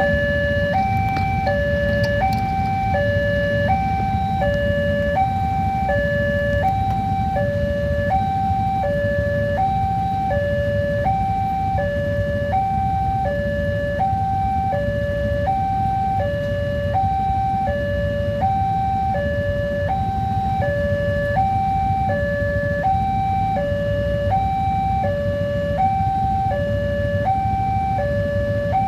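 Indonesian railroad level-crossing warning siren sounding a steady two-tone alarm, high and low notes alternating about every three quarters of a second, warning that a train is approaching. A steady low rumble runs underneath.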